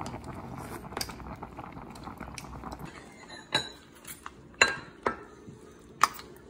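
A pot of sujebi soup bubbling softly as it is stirred with a wooden spoon, then a metal ladle clinking sharply against the pot and a ceramic bowl four times as the soup is served.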